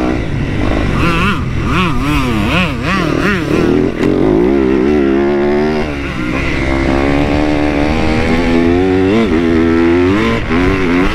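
Dirt bike engine at race pace, heard from on board. Its pitch swings rapidly up and down for the first few seconds, then climbs in longer, steadier pulls broken by a few brief dips.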